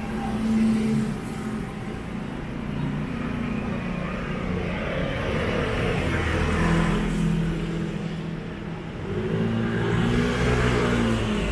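Motor vehicles passing on the street close by: a pitched engine hum over road noise that swells and fades several times, loudest about half a second in, around six to seven seconds in, and near the end.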